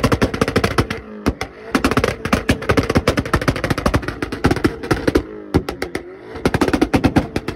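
Exhaust of a stationary Škoda Octavia estate being revved hard, firing a rapid, unbroken stream of pops and bangs, several a second, over the engine note. The popping eases off briefly just after a second in and again about six seconds in, then picks up again.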